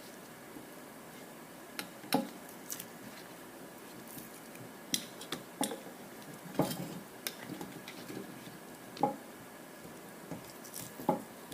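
Scattered sharp clicks and short knocks of metal tools and carburetor parts being handled on a workbench while a stuck gasket is worked loose from a Quadrajet four-barrel carburetor.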